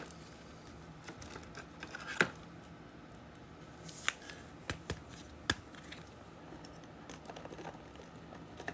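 Football trading cards and packs being handled on a table: scattered soft clicks and taps with faint rustling, the sharpest taps about two, four and five and a half seconds in.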